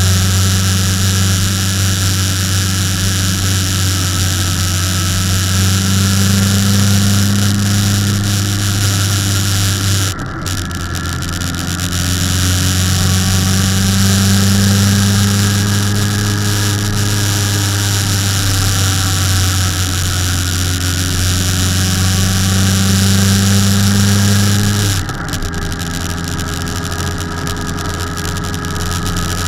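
Motorcycle engine running steadily on the move, with wind rushing over the bike. The engine note and the wind noise dip about ten seconds in and again near the end.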